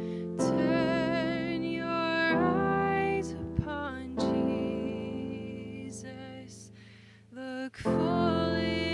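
A woman singing a slow hymn with vibrato, accompanying herself with held chords on an electric keyboard, with a short break between phrases near the end.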